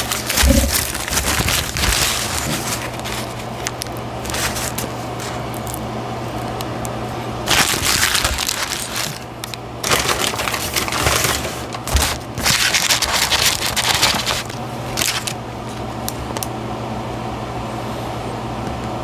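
Paper food wrapper crinkling and rustling as a burger is unwrapped and the paper handled, in irregular bursts that are thickest near the start and again through the middle, over a steady low hum.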